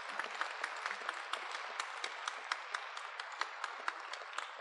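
An audience applauding steadily, many hands clapping at once. Near the end it begins to fade.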